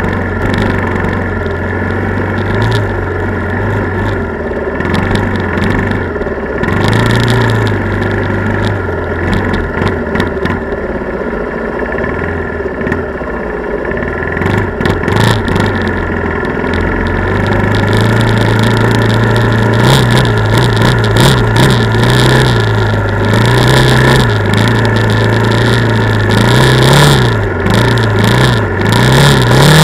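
ATV (quad) engine running under way over snow, its pitch wavering and stepping up and down with the throttle. It gets louder and busier from about two-thirds of the way through, with frequent short bursts of noise over it.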